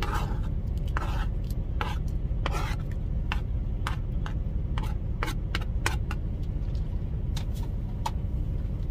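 Steady low rumble of the moving truck cab, with a scatter of light clicks and taps as a fork scrapes chopped red onion off a plastic cutting board into the rice cooker's metal pot.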